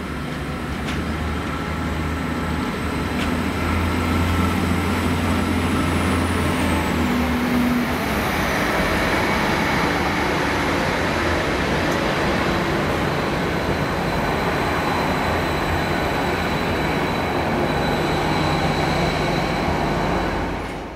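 Diesel multiple-unit passenger trains running through a station. A steady low engine hum for the first seven seconds or so, then a louder, even rush and rumble of a train passing close by.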